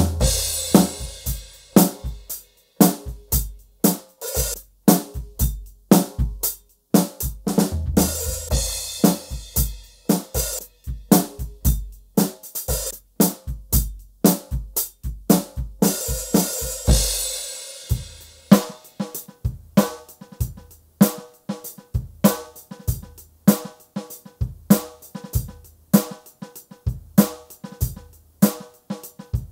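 Donner Backbeat electronic drum kit played through its sound module: a drum groove of kick, snare and hi-hat, with crash cymbal hits near the start, around eight seconds and around sixteen seconds. About eighteen seconds in the groove turns sparser and more even.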